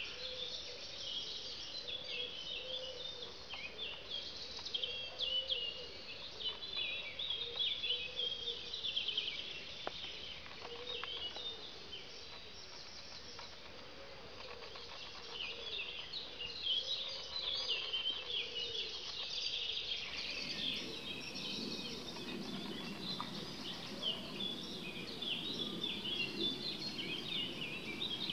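Several birds chirping and singing at once, a dense chorus of short high calls. About two-thirds of the way through, the sound changes and a low, steady background noise joins the birdsong.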